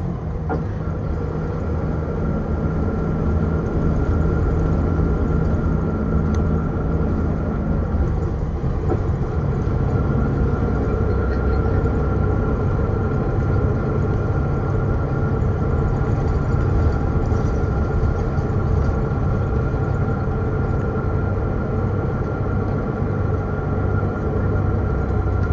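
City bus driving along, heard from inside the cabin: steady engine rumble and road noise with a constant high whine that drops out briefly about eight seconds in. The sound grows a little louder over the first few seconds.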